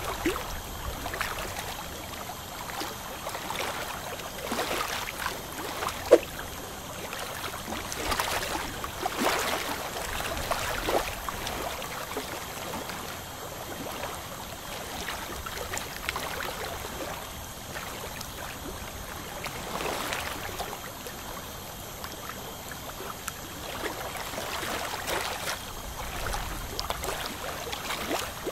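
Ultrasonic dental scaler removing heavy black tartar from teeth: its water spray and a suction tip drawing up water make a steady wet hiss, with irregular scrapes and clicks of the metal tip on the teeth.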